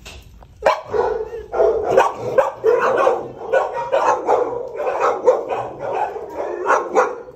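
Several shelter dogs barking in a row of kennels, overlapping in a continuous clamour. It starts about a second in and stops just before the end.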